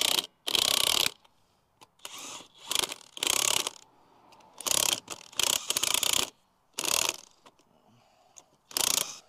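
Cordless driver with a socket extension spinning lug nuts onto the wheel studs in a series of short runs, about seven, each under a second with pauses between. This is the lug nuts being run down before they are torqued to 100 foot-pounds.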